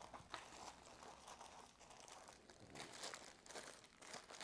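Soft packaging wrap crinkling and rustling faintly as it is handled and pulled open, in irregular crackles.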